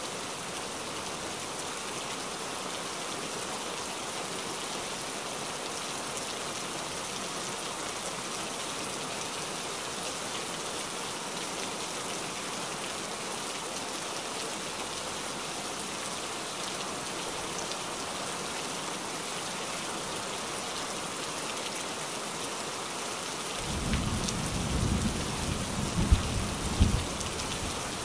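Steady rain falling, an even hiss throughout. About four seconds before the end, a few seconds of low rumbling thumps come in, louder than the rain.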